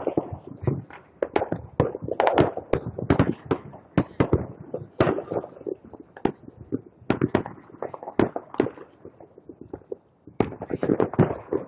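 Firecrackers going off in a rapid, irregular series of sharp cracks, with a short lull near the end before another dense burst.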